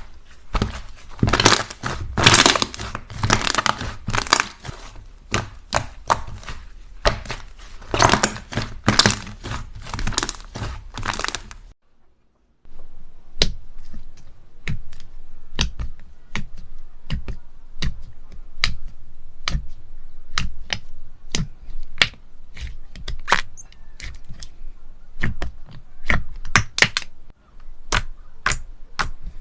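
Slime being squeezed and pressed close to the microphone, giving dense wet crackling and popping. About twelve seconds in the sound briefly drops out, and after that the pops come sparser and sharper.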